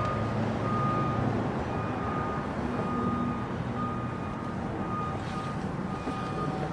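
Electronic warning beeps repeating about once a second, like a vehicle's reversing alarm, over a low, steady engine hum. A second, lower-pitched beep joins in about five seconds in.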